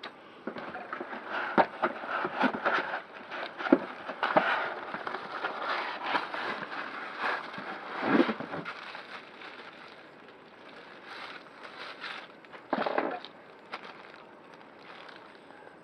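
Irregular rustling and clicking from handling packaging and vacuum parts, busy through the first ten seconds and then sparser. No motor is running.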